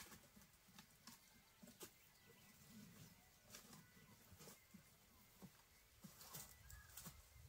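Near silence: faint outdoor ambience with scattered soft clicks and rustles, and a faint bird call near the end.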